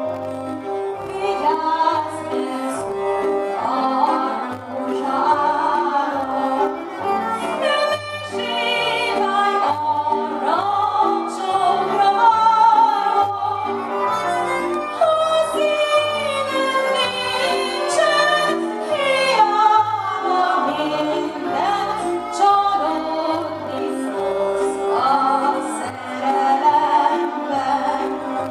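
A woman singing a Hungarian nóta live with a Gypsy band: a lead violin over cimbalom, viola and a double bass keeping a steady pulsing beat.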